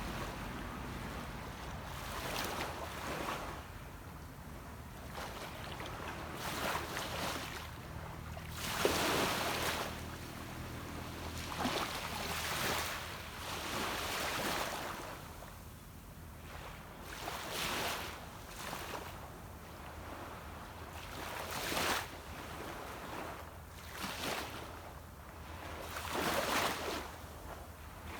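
Small sea waves breaking and washing onto a beach, a rushing swell every two to four seconds. Under them runs a steady low hum from a distant boat's motor.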